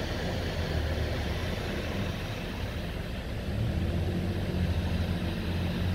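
Vehicles driving through floodwater across a road, their tyres throwing up a steady wash of splashing water. A pickup truck's engine hum grows louder in the second half as it ploughs through the water.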